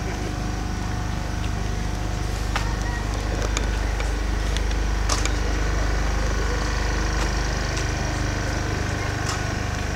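A steady low mechanical rumble with a few faint steady tones, like a motor or engine running, broken by a handful of scattered light clicks.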